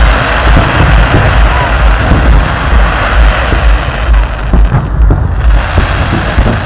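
Fireworks display: shells bursting in a loud, continuous rumble of booms with a few sharper cracks, over crowd noise.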